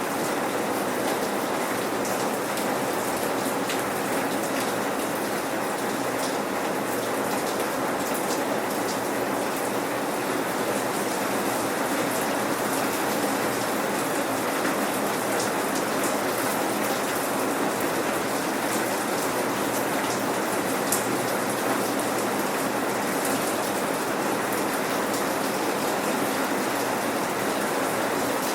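Steady rain falling without thunder, a dense even patter of raindrops on surfaces with a few sharper individual drops.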